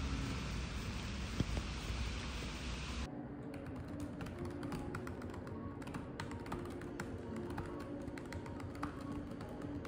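Steady hiss of rain with a low outdoor rumble for about three seconds, cut off suddenly. Then rapid keystrokes clicking on a computer keyboard.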